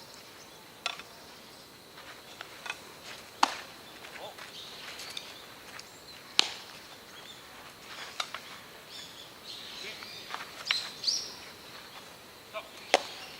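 Sharp knocks of ball play, several seconds apart: the louder ones come about a third of the way in, about halfway and near the end. Faint bird chirps run underneath.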